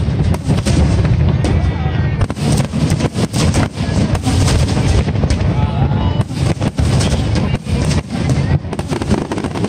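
Fireworks display: aerial shells bursting in rapid, overlapping bangs and crackles, several a second, over a continuous low rumble.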